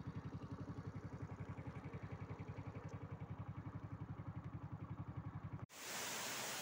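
Small motorcycle engine running with an even, steady beat of about ten pulses a second. About five and a half seconds in it cuts off abruptly, giving way to the steady rush of a waterfall.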